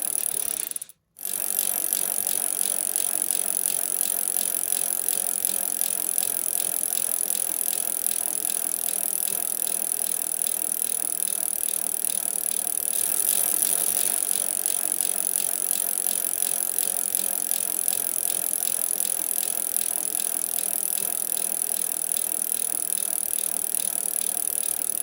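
Bicycle drivetrain with a steady, fast ticking rattle from the chain, with a brief drop to silence about a second in.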